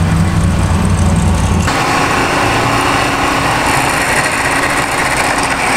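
Recorded drag-race engine noise played back through a phone's small speaker, thin and tinny, with the phone held to the ear to listen for an exhaust pop. A low steady hum runs under it for the first second and a half, then cuts off abruptly.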